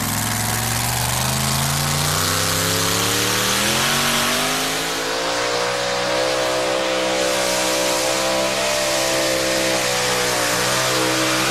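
Supercharged V8 of a super modified two-wheel-drive pulling truck at full throttle, dragging the weight sled down a dirt track. The revs climb over the first five seconds, then hold high and steady under load, with brief small dips near the end.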